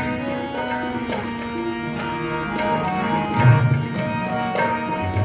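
Instrumental interlude of a Sikh kirtan: tabla playing a steady rhythm with deep bass-drum strokes under sustained harmonium chords.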